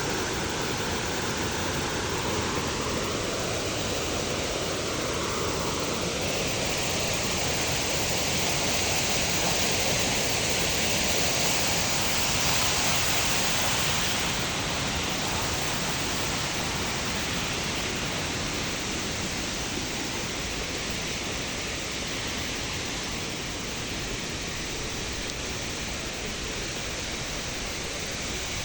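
Waterfall: a steady rush of falling water that swells a little in the middle. A faint wavering tone sounds over it during the first few seconds.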